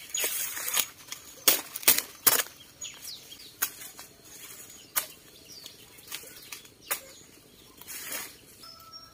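Dry corn stalks and husks being chopped with a machete and snapped by hand: sharp cracks with dry rustling. There are about five quick strokes in the first two and a half seconds, then single snaps every second or two, and a rustle near the end.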